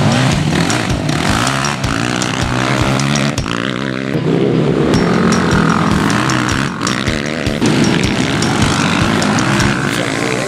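Racing quad (ATV) engines revving hard as the quads pass, their pitch rising and falling again and again as they accelerate and shift.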